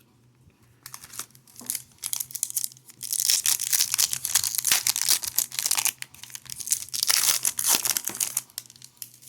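Plastic wrapper of a hockey card pack crinkling and tearing as it is ripped open and handled, in dense crackly bursts that come on about a second in and peak through the middle.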